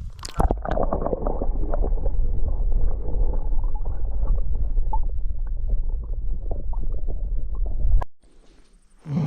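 Loud, uneven low rumble with crackling on the microphone, which cuts off abruptly about eight seconds in; a short thump comes just before the end.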